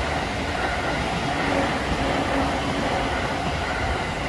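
Train passing over the level crossing: a steady rumble of wheels on the rails.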